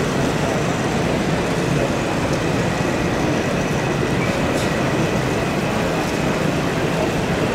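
Steady exhibition-hall background noise, with an N gauge model diesel locomotive and its coaches running along the track. A faint thin whine sits over it through the middle.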